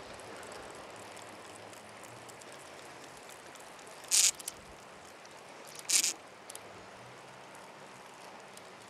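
Faint low hum of an incoming boat's engine across the harbour under steady outdoor background noise. Two short, high hisses break in about four and six seconds in.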